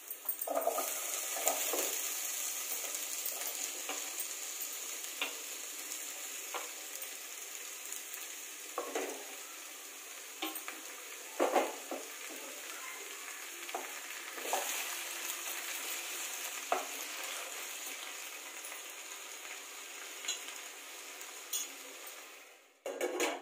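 Mixed vegetables frying in oil in a steel kadai, the sizzle swelling about half a second in as wet chopped cucumber goes into the pan, then slowly easing. A few short clinks and knocks of a metal spoon against the pan now and then.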